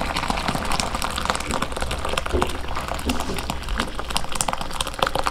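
Boiled, chopped bamboo shoots and their cooking water being poured from a pot into a metal strainer: a steady splashing gush of water with a crackly patter. The shoots are being drained after boiling to rid them of their bitter sap.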